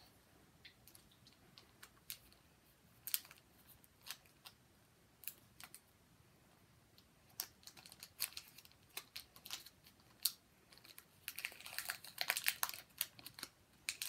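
Foil booster-pack wrapper being handled, giving scattered light clicks and crinkles, then a dense rush of crinkling about eleven seconds in as the pack is torn open.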